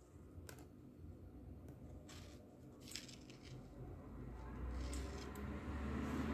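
A few faint clicks and taps from fingers handling and tapping a small Android tablet. A low rumbling hum of unclear source rises from about four seconds in and grows louder towards the end.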